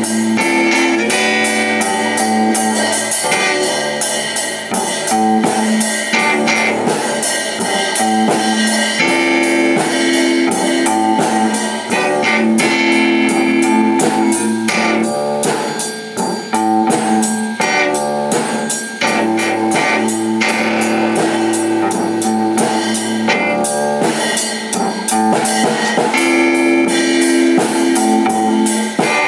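Band playing live: two amplified electric guitars and a drum kit, the drums keeping a steady beat under sustained, distorted-free guitar chords and riffs.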